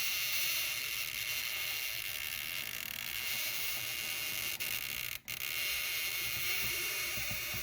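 Stretch-release battery adhesive strip on an iPhone 7 Plus being slowly pulled out from under the battery, a steady crackling hiss as the adhesive peels away from the metal housing. It breaks off for a moment about five seconds in.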